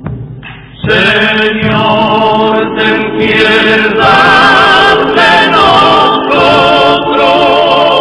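Background music: a choir singing long, wavering held notes. It comes in loudly about a second in, after a brief quieter gap.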